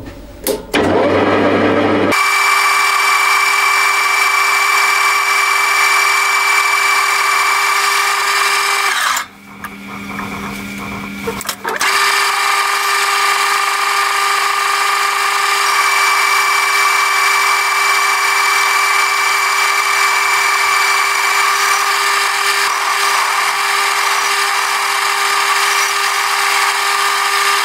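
Metal lathe turning down round bar stock with a carbide insert tool: a loud, steady whine with a high ringing tone. It drops away about nine seconds in, picks up again about three seconds later, and stops near the end.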